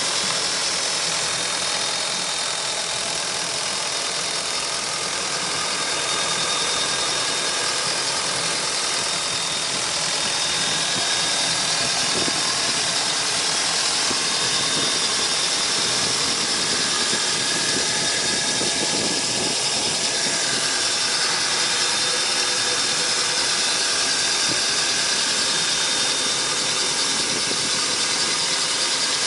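MerCruiser 350 Magnum EFI Tournament Ski V8 inboard engine running steadily, heard up close in the open engine compartment.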